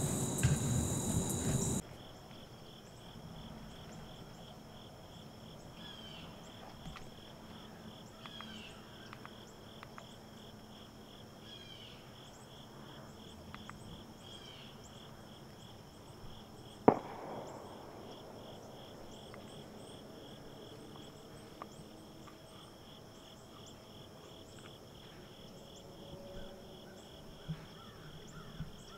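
Insect chorus of crickets: a steady high trill over a rhythmically pulsing chirping, after background music cuts off about two seconds in. A few short descending chirps come in the first half, and a single sharp click about halfway through is the loudest sound.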